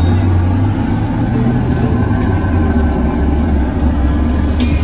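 A loud, steady low engine-like rumble, with a short clink near the end.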